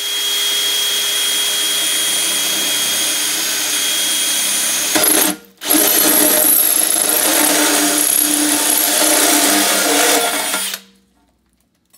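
Cordless DeWalt drill spinning a hole saw through an aluminium road-sign sheet, cutting a hole, with a steady high whine over the cutting noise. It runs in two stretches with a short pause about five seconds in, and stops about a second before the end.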